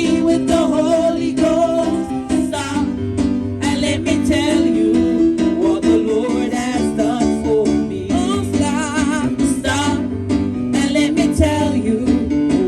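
Gospel music: a singer holding wavering notes over steady instrumental accompaniment.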